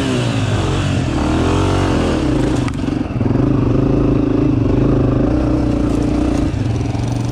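Dirt bike engine under way on rough trail, revving up and down a few times in the first couple of seconds, then pulling at a fairly steady pitch and easing off near the end.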